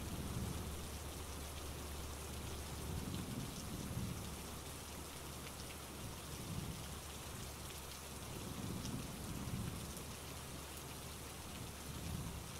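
Steady rain falling, an even hiss, with soft low rumbles swelling every few seconds.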